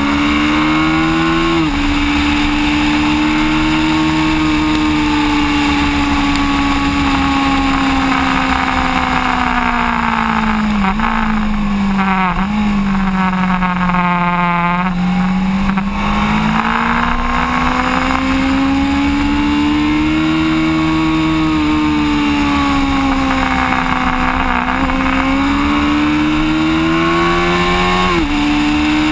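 Sport motorcycle engine running hard on a racetrack, its note climbing and sinking over long stretches. Its pitch drops suddenly several times, as at upshifts, and jumps up sharply once near the end, as at a downshift. Steady wind and road noise runs under it.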